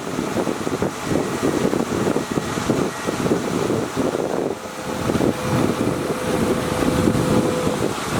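Heavy earthmoving machinery's diesel engine running under load, with wind buffeting the microphone. A steady whine joins about halfway through and lasts around three seconds.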